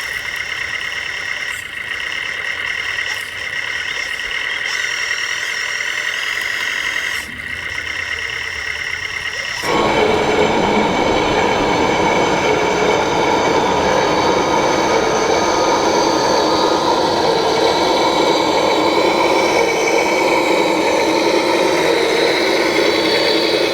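Radio-controlled model vehicles running, their electric drive motors and gearboxes giving a steady high whine. About ten seconds in the sound changes suddenly to a louder, denser running noise that holds steady.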